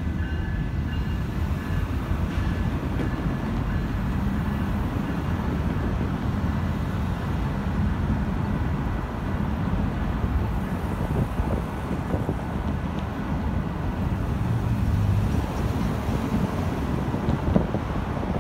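TriMet WES diesel multiple-unit commuter train pulling away, a steady low rumble of its engine and wheels.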